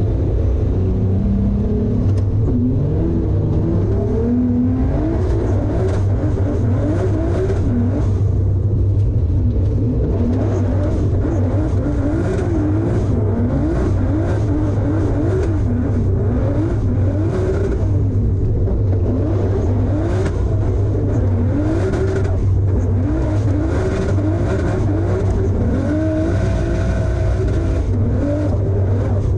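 Roughly 800-horsepower BMW E46 wagon drift car heard from inside the cabin, its engine revs climbing and dropping again and again over a steady low drone.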